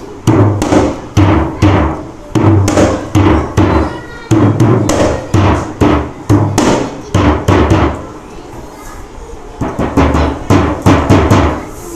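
Dhol played in a rhythmic pattern of deep bass strokes and higher-pitched treble-side strokes, trying out the freshly tuned heads. The strokes break off for about two seconds two-thirds of the way through, then come back as a fast run.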